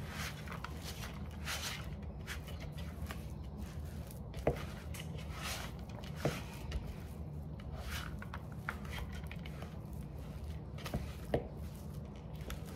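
Jalapeno popper cream cheese filling being stirred by hand in a bowl: irregular soft scraping and squishing, with a few light knocks of the utensil against the bowl.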